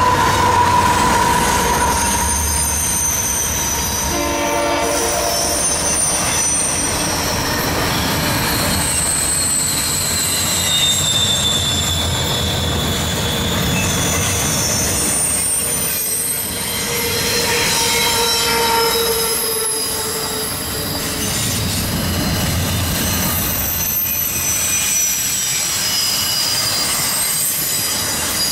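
Freight train rolling past with its wheels squealing high and wavering against the rails over a steady rumble of cars. A short horn-like note sounds about four seconds in.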